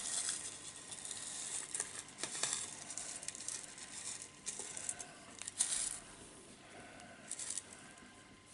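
Granular bonsai substrate scratching and clicking as a chopstick is poked into it again and again around a repotted tree's roots, settling the soil and filling air pockets. The strokes are irregular, with a few sharper ones about two and a half and five and a half seconds in.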